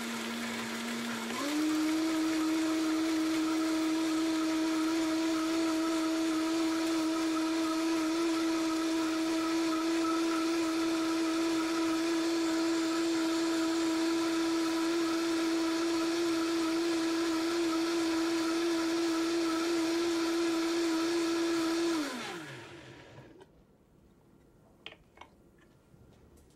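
Vitamix 5200 blender motor running with a steady whine, stepping up in pitch about a second and a half in as it is switched to high, then holding steady on high. About twenty seconds later it is switched off and winds down with a falling whine, and a few light clicks follow as the container is lifted off the motor base.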